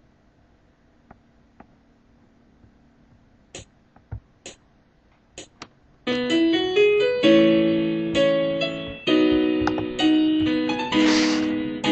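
A few faint clicks, then about halfway through an electric keyboard starts a song's intro, playing held chords with a melody on top, each new chord struck about once a second.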